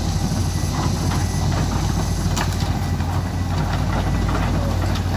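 Komatsu hydraulic excavator's diesel engine running steadily at a low, even pitch, with a few faint scattered clicks.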